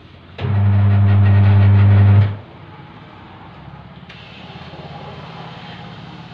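A tyre changer's electric turntable motor hums loudly and steadily for about two seconds, then cuts off. About four seconds in, compressed air starts hissing steadily through an inflator gun with a gauge into the repaired tubeless tyre.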